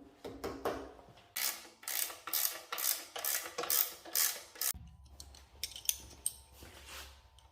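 Wrench working a levelling bolt on a welded steel stand: a run of about ten quick clicking strokes, roughly three a second, stopping a little before two-thirds of the way through. A faint low hum and a few light clicks follow.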